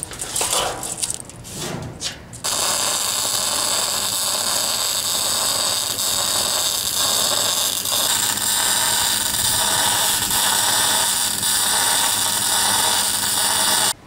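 Brief handling sounds, then from about two and a half seconds in the steady hiss of electric arc welding on a steel box-section frame, running evenly without a break.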